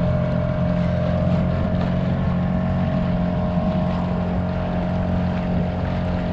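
A boat engine running at a steady speed, a constant hum with an even pitch that does not rise or fall.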